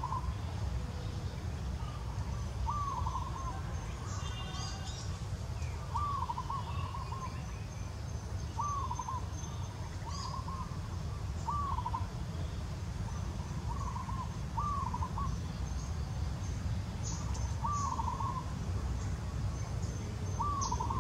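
A bird calling over and over in forest, short arched whistled notes repeated every one to three seconds, over a steady low rumble.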